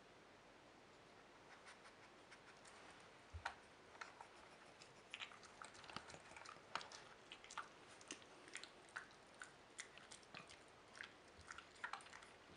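Faint, irregular clicks and taps of hard plastic as a dog noses the lids and flaps of a Trixie level 2 dog strategy game, mixed with the dog chewing treats. The clicking starts about a second and a half in and grows busier from about three and a half seconds.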